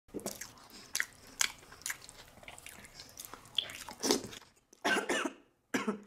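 Close-miked eating of sauce-coated boiled eggs: wet chewing with sharp lip smacks and clicks. There are a couple of longer breathy mouth sounds about four and five seconds in.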